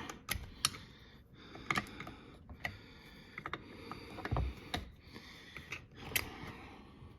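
Irregular small metal clicks and taps of Demco Aluminator tow bar lock parts being handled and worked apart by hand, with a duller knock about halfway through.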